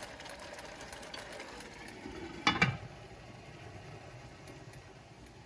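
Onion and tomato base simmering quietly in a cooking pot, with faint bubbling ticks. Two sharp knocks come about two and a half seconds in.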